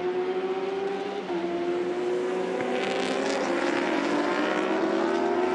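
Endurance-racing superbikes at full throttle, the engine note rising steadily, with an upshift about a second in. A pack of bikes passes close about three seconds in, adding a harsher, hissing edge.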